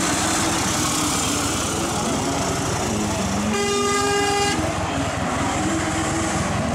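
Six-wheeled army truck's engine running and pulling away, its pitch rising and falling. Midway a vehicle horn gives one steady toot of about a second.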